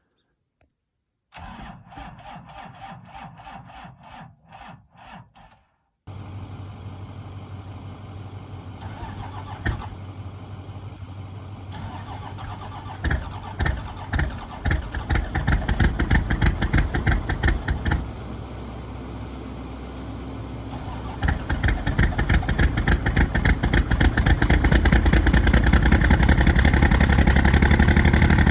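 12-valve Cummins 5.9 L inline-six turbo diesel in a first-generation Dodge Ram being cold-started, its fuel partly gelled from summer-grade diesel. It cranks over on the starter with an even rhythm, then cranks at length with uneven firing, and from about two-thirds of the way in runs louder and steadily.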